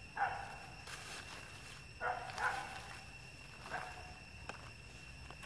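Macaques giving short calls, four of them a second or two apart. A faint steady high-pitched drone runs underneath.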